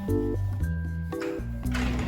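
Background instrumental music: soft chords of held notes over a bass line, changing about every half second. A rushing noise starts to swell near the end.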